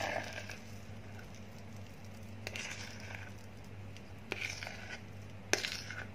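A spatula scrapes and dabs thick cake batter out of a plastic mixing bowl into a cake tin. There are a few short, faint scrapes and squelches, with a sharper click about five and a half seconds in.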